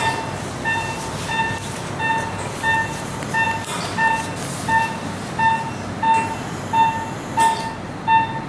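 Operating-room patient monitor giving its short, evenly spaced pulse beeps, about one and a half a second, over a steady room hiss. The beeps follow the anaesthetised patient's heartbeat.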